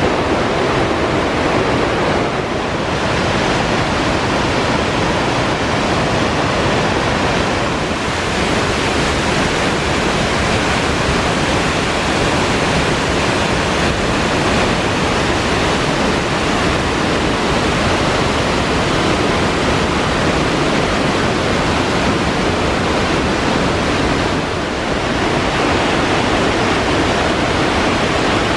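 Tall waterfall, Osprey Falls, plunging into its pool: a loud, steady rush of falling water.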